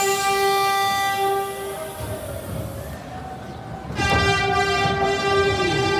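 Horn of an IRT R33 World's Fair subway train sounding two long blasts. The first ends about two seconds in, and the second starts about four seconds in. The train's running rumble fills the gap between them.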